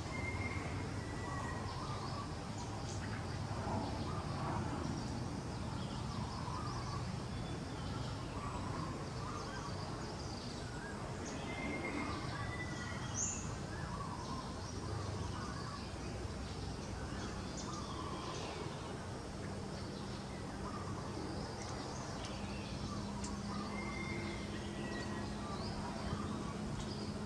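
Birds calling and chirping over steady outdoor background noise, with a short two-part whistle that comes back three times, about twelve seconds apart.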